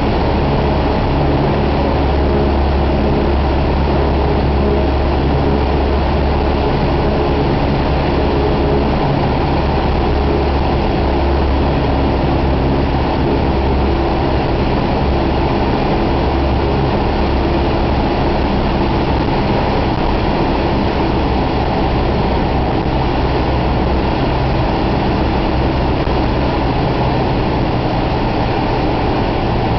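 Cessna 172M's four-cylinder Lycoming O-320 engine and propeller running steadily, heard from inside the cabin as a loud drone with a strong low hum. Its tone shifts a little a few times.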